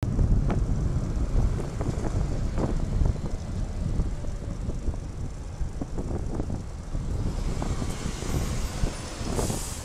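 Wind buffeting the microphone of a bicycle-mounted camera as the bike rides along a road, a low rumble with scattered knocks, over traffic noise, and a brief rushing hiss near the end.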